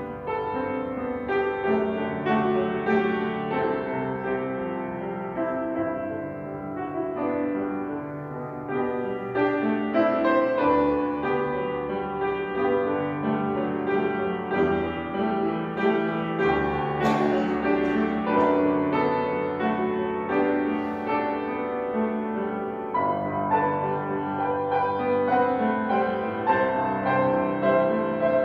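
Grand piano played solo: a slow piece of held chords under a melody.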